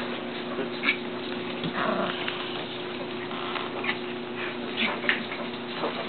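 Shetland sheepdog puppies play-fighting, with scattered brief scuffles and short puppy noises now and then.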